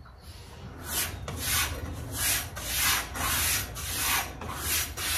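A VG10 kitchen knife blade stropped on a kangaroo leather strop mounted on a board, in quick back-and-forth strokes of about two a second, each a short rasping rub. It is the finishing step after the 1500- and 2500-grit belts, working off the burr.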